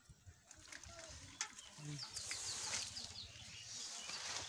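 Rustling and crackling of wet pond weed and a nylon net as the heap is sorted by hand, with scattered clicks. About two seconds in, a bird gives a quick series of short, high, falling chirps.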